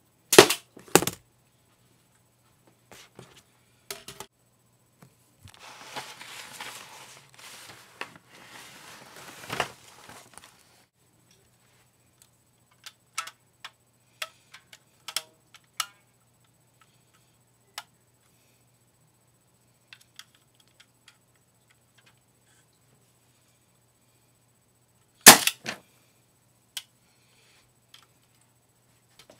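Rubber-band-powered LEGO crossbow fired twice: a loud, sharp crack about half a second in, with a second crack just after, and another loud crack with a quick rattle near the end. In between come rustling and light plastic clicks as the crossbow is handled.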